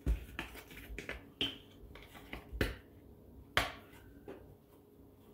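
Plastic screw cap of a cardboard cream carton being twisted open: a series of sharp, irregular clicks and snaps.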